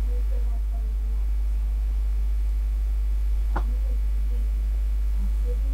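Steady low mains hum on the recording, with one short click about three and a half seconds in.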